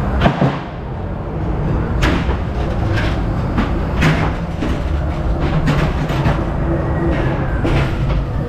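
Ghost-train car rolling along its track with a steady low rumble, broken by several sharp knocks and bangs as it pushes through the exit doors. The louder knocks come about two seconds in, about four seconds in and near the end.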